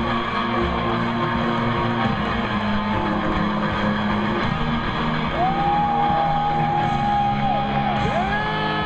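Music with long held notes that slide up into pitch, once about five seconds in and again near the end.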